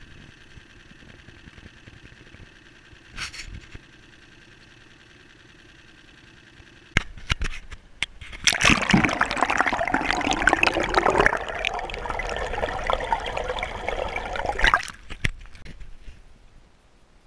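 Water gurgling and splashing loudly for about six seconds, starting about eight seconds in and cutting off abruptly, as it washes over a camera held at the waterline beside a moving boat. Before it, a boat motor runs faintly and steadily.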